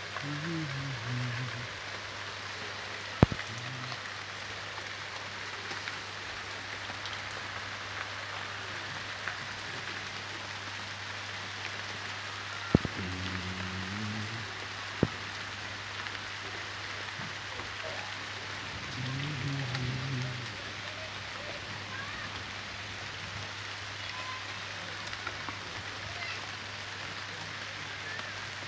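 Steady rain falling on leaves, plants and the ground, an even patter throughout. A few sharp knocks stand out above it, about three seconds in and again around thirteen and fifteen seconds.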